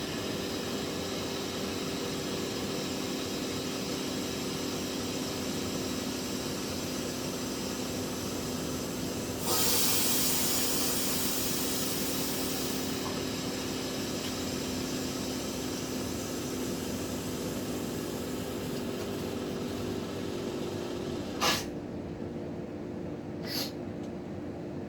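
Water rushing steadily out of a water heater's drain ball valve into a bucket during a sediment flush. The rush turns to a louder hiss for about three seconds partway through. Two short sharp knocks come near the end.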